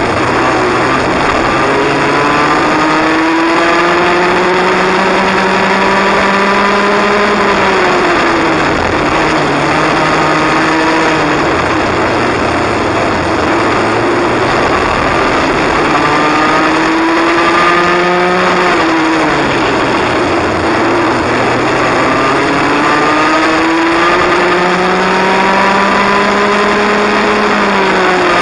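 Cadet kart's small engine, heard from onboard at racing speed. Its pitch climbs along each straight and drops sharply as it slows for a corner, about three times (near 8 s, 18 s and the end), over a steady rush of wind and tyre noise.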